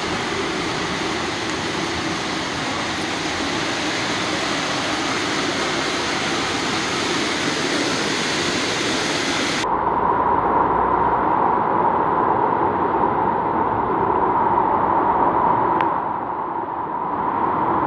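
A steady rush of floodwater gushing up from a burst manhole and running over a flooded street, with cars splashing through it. About ten seconds in, the sound turns abruptly duller.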